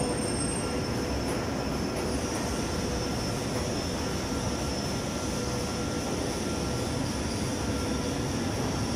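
Roller-type veneer dryer line running: a steady, even machine drone with faint steady whines running through it.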